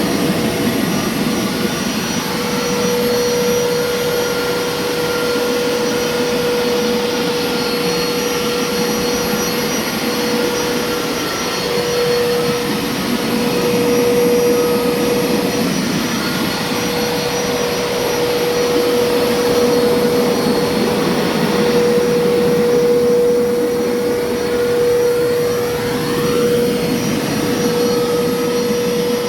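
Hoover carpet cleaner running: a steady motor whine over a dense suction rush, swelling and easing a little as it works.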